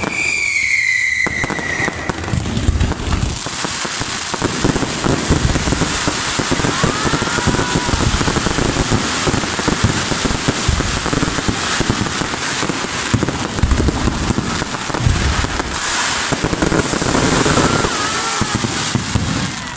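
Fireworks display going off close by: a dense, continuous crackle of popping stars mixed with bangs of bursting shells, opening with a falling whistle in the first couple of seconds.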